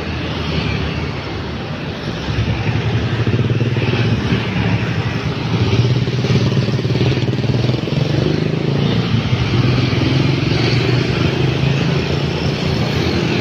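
Street traffic passing close by: a stream of motor scooters with their engines running, growing louder about two seconds in.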